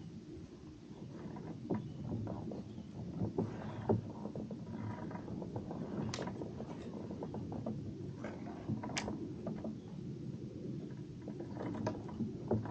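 Irregular mechanical clicks and small knocks from fishing tackle being handled in a kayak, over a low steady rumble.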